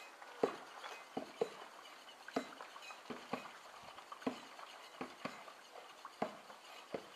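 Scattered light taps, plops and clinks from water and kitchenware (a whisk in a steel cooking pot, a plastic tub, a bucket) played as an improvised water percussion piece. The strokes come irregularly, about one or two a second, some with a short pitched ring.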